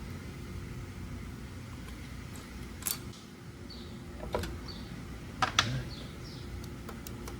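A few sharp metallic clicks and clinks of bolts being set into the cam and crank gears of a Harley twin-cam engine, about three, four and a half and five and a half seconds in, over a steady hum of shop fan or air conditioning.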